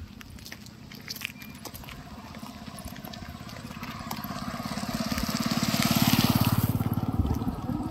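A motorcycle approaches and passes close by, its engine growing louder to a peak about six seconds in, then fading quickly.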